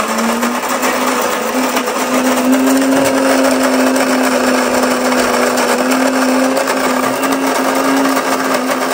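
Coffee maker's built-in grinder running and grinding coffee beans: a noisy, steady motor whir with an even hum.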